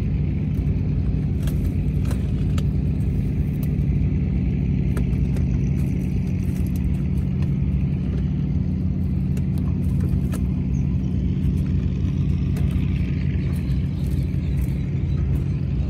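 An engine running steadily at one even speed, with a low, unchanging hum. Faint scattered clicks and knocks sit over it.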